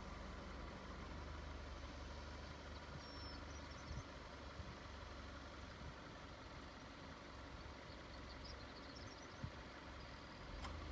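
A vehicle engine idling with a faint steady low hum, with a couple of light knocks and a few faint high chirps.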